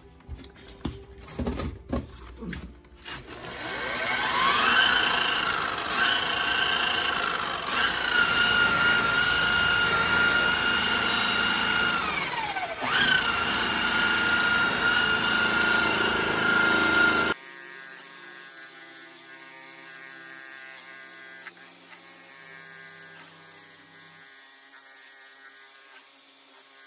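Makita variable-speed rotary polisher with a wool pad, run at high speed against a jet ski's gelcoat hull to buff off oxidation. After a few knocks, its motor whine rises as it spins up, holds steady, and dips and recovers once under load. About two-thirds of the way through it drops suddenly to a much quieter steady whir.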